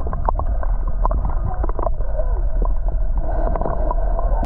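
Muffled sound picked up by a camera held underwater in a freshwater pool: a steady low rumble with scattered small clicks and ticks, the higher sounds cut off by the water.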